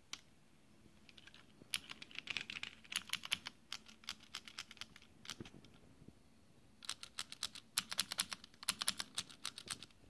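Cherry MX mechanical key switches clicking in quick runs of keystrokes as a 3D-printed thumb paddle and the nearby keys are pressed over and over. One run starts about two seconds in and thins out, and a second, denser run comes from about seven seconds in.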